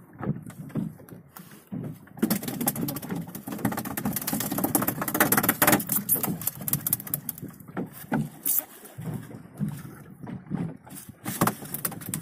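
Rustling and brushing of clothing against the camera microphone, a dense scratchy noise that is loudest for several seconds in the middle, with low muffled voices around it.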